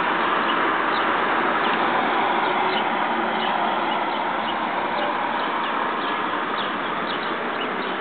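Steady hum of distant road traffic, with many short, high bird chirps dotted through it.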